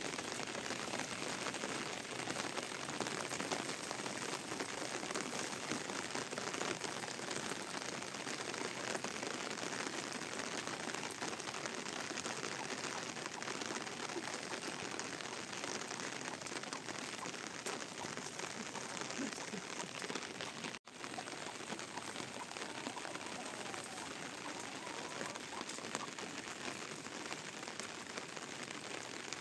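Steady rain falling and pattering on surfaces, with a brief dropout about two-thirds of the way through.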